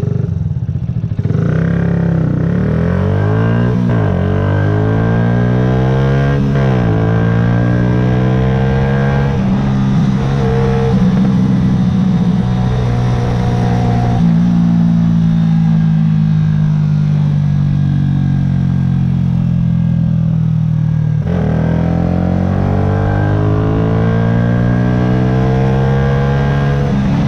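Yamaha YZF-R125's single-cylinder four-stroke engine accelerating, its pitch climbing with short drops at gear changes about four and seven seconds in. It then holds a steady pitch while cruising. Near the end the revs drop suddenly and climb again.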